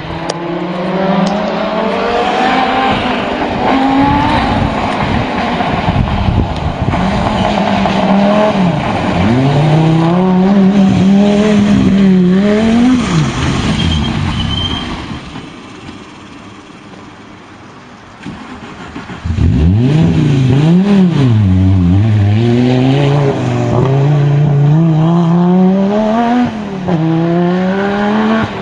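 Rally cars at full speed on a gravel forest stage, engines revving hard up through the gears, the pitch climbing and dropping at each shift. One car passes about halfway through, and after a few quieter seconds a second car comes through.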